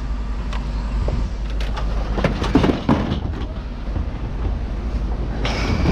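Scrap metal clanking and knocking as pieces are pulled and shifted in a loaded truck bed, with a cluster of knocks in the middle, over a steady low rumble.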